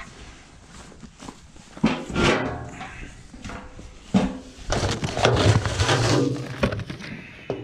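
Galvanized metal feed can being opened and rummaged: a sharp knock about four seconds in, then the paper feed bag inside rustled and handled loudly for a couple of seconds.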